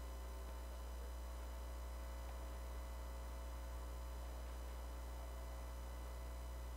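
Steady low electrical mains hum with faint hiss; no other sound.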